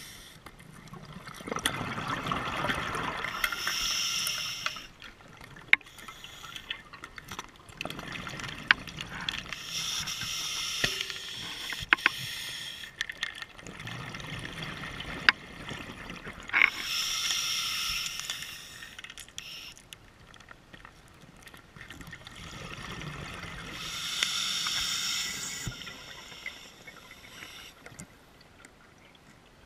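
Scuba diver breathing underwater through a sidemount open-circuit regulator: a rush of exhaled bubbles about three seconds long, four times at roughly seven-second intervals. Scattered sharp clicks fall in between.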